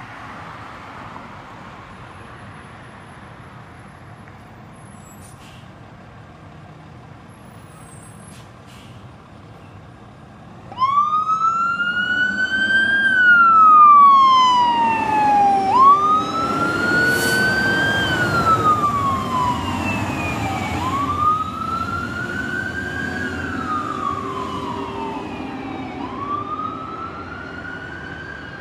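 Fire engine's siren switching on about eleven seconds in and wailing, each cycle rising then slowly falling, about every five seconds. Under it the truck's engine rumbles, loudest as it passes, and the siren fades as the truck drives away. Before the siren, only a low steady rumble.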